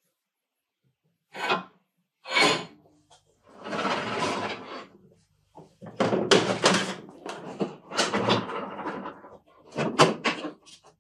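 A plywood workbench drawer sliding open and shut, with hard plastic tool cases knocking and clattering as they are handled inside it.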